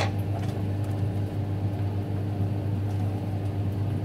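Steady whirring hum of a kitchen appliance running, a low drone with a fainter higher tone held over it.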